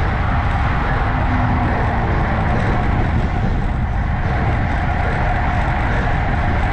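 Steady wind buffeting the microphone of a bike-mounted camera, with tyre and road noise from a road bike riding at about 38 km/h on asphalt.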